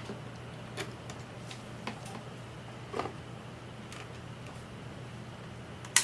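A few light clicks and taps from alligator clips and wires being handled and attached, the sharpest right at the end, over a steady low hum.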